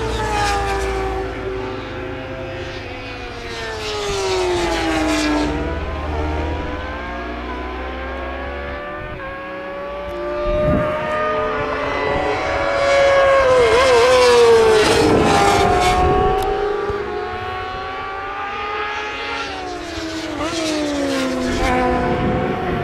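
Racing motorcycles passing one after another at race speed. Their engine notes rise and fall in pitch as each bike goes by, loudest about two thirds of the way through.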